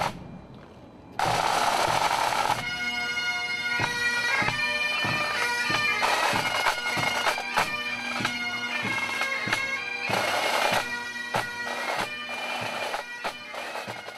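A brief rush of jet aircraft noise about a second in, then a pipe band's bagpipes playing a tune over a steady drone, with regular drum strokes, cut off abruptly at the end.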